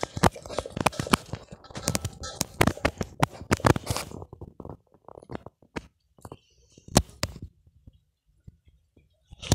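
Bhotekukur dog eating from a steel bowl: rapid crunching and clicking for about the first four seconds, then only a few scattered clicks, with one sharp click about seven seconds in.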